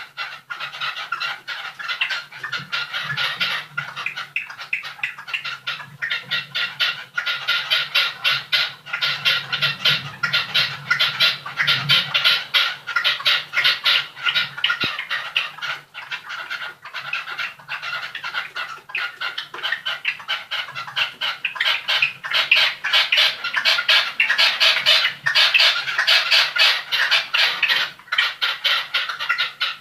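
Several small kept birds singing nonstop, close by, in rapid chattering trills. A faint low hum runs underneath.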